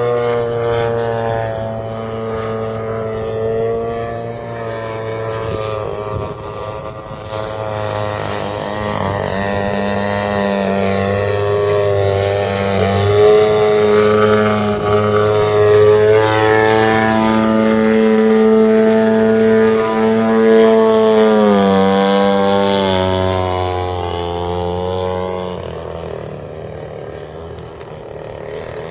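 Desert Aircraft DA-50R 50cc single-cylinder two-stroke petrol engine driving the propeller of a 3D RC plane in flight, its pitch rising and falling as the throttle is worked. It grows louder through the middle and fades over the last few seconds.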